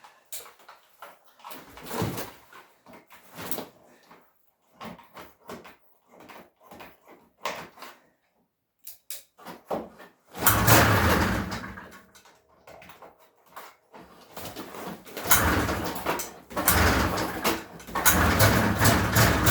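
Cold Ski-Doo MX Z Rotax 583 two-stroke twin being pull-started, after several seconds of knocks and clicks. About halfway through a pull brings a loud burst that dies away, and a few more pulls near the end get the engine running.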